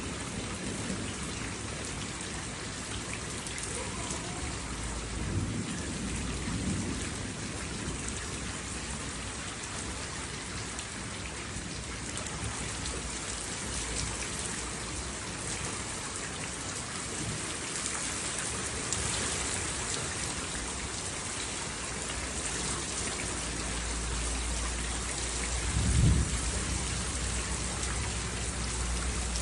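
Steady rain falling, with low rolls of thunder: a softer rumble a few seconds in and a louder one near the end.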